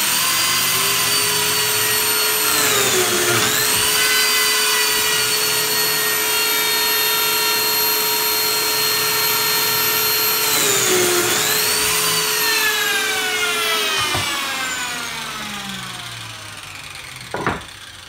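Lamello Zeta P2 slot cutter's motor running at speed. Its pitch dips twice, about 3 and 11 seconds in, as it plunges into the thick hardwood miter to cut a pair of Clamex P-14 connector slots. It is then switched off and winds down with falling pitch over a few seconds, and a single knock comes near the end.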